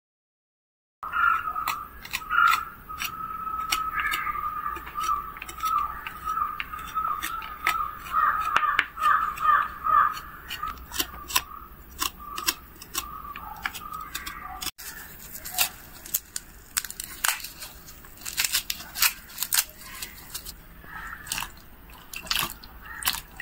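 Kitchen knife trimming cauliflower florets: a run of short, sharp cuts and snaps, with a faint wavering tone behind them. From about halfway on, hands swish and splash the florets in a bowl of water as they are washed.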